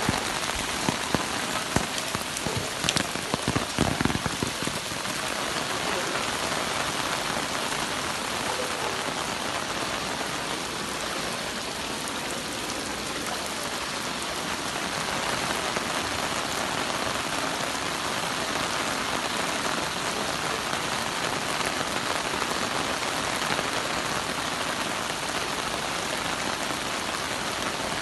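Heavy rain falling steadily, a dense even hiss, with a cluster of sharp drips and taps in the first few seconds.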